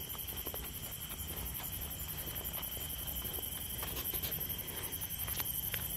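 Chorus of night insects: a steady high trill with a fast, evenly pulsing shrill above it, and scattered faint clicks.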